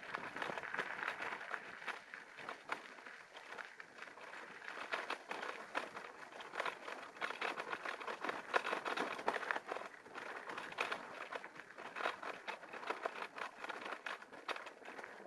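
Bicycle tyres rolling and crunching over a gravel dirt road, a constant crackle of small clicks and rattles.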